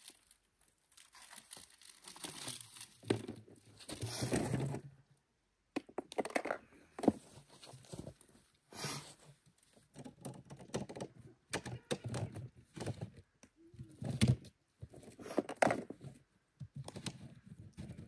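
Flexible heater hose and gear being handled in a plastic storage tote: irregular rustling and crinkling with scattered knocks and thumps.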